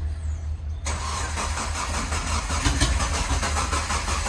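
Hyundai race car's engine turning over on its starter without firing: a fast, even cranking chatter that starts suddenly about a second in.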